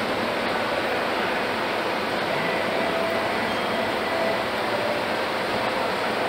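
Steady ambient noise of a large engine-repair workshop hall, an even hiss and rumble from ventilation and machinery with a few faint high whines.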